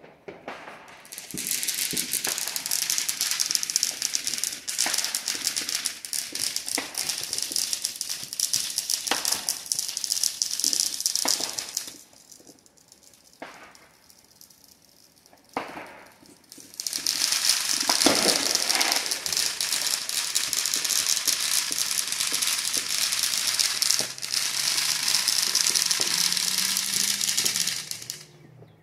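Fireworks crackling in two long, dense runs of rapid small pops, like strings of firecrackers going off, each lasting about ten seconds. A few single pops sound in the lull between them.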